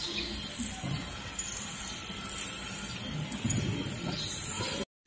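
Insects chirping in a steady high-pitched chorus, with a few soft low bumps. The sound cuts out for a moment near the end.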